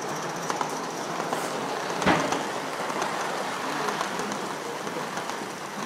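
Gauge 1 live-steam model locomotive of an LNER B12 running slowly on the track: a steady hiss with a few faint clicks, and a single knock about two seconds in.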